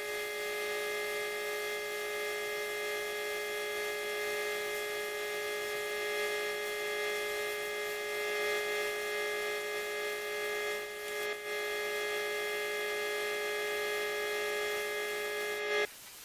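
An electric motor running with a steady, even hum that cuts off suddenly near the end.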